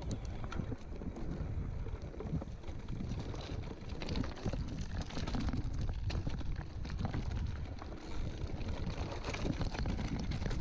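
Mountain bike riding over a rough trail onto loose rocks: tyres crunching and clattering over the stones, the bike rattling with many sharp knocks, over a steady low rumble of wind on the microphone.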